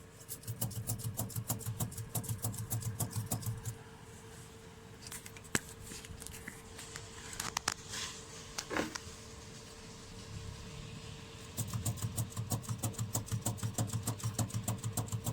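Lada Vesta anti-roll bar link, unbolted from the strut and shaken by hand, knocking rapidly in two spells of about five or six knocks a second, with a few single clicks between. It is the worn link that knocks over bumps.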